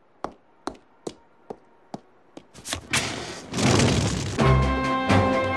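Cartoon footsteps walking away, six hard steps at about two a second. Then a rising rush of noise as a dumpster bursts into flames, and music comes in near the end.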